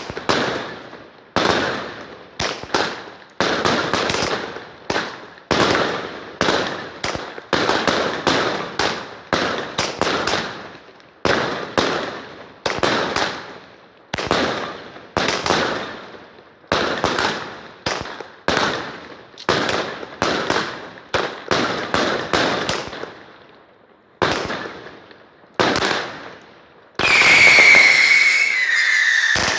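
Fireworks going off: a long, regular series of sharp bangs, one or two a second, each trailing off in crackle. Near the end a loud, wavering whistle starts up and keeps going.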